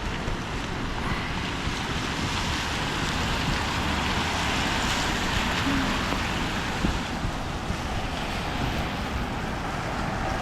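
Steady rushing hiss of rain and tyres on wet city pavement, swelling louder around the middle of the stretch.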